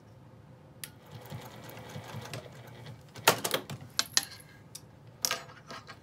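Juki sewing machine running for about two seconds while topstitching along a zipper. It stops, and a run of sharp clicks and clacks follows as the work is taken out and the threads are trimmed; the clicks are the loudest sounds.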